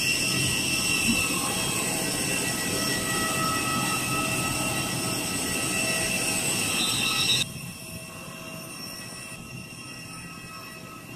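Steady whine of a parked jet airliner on the apron, several high steady tones over a low rumble. About seven seconds in it drops abruptly to a quieter, duller hum.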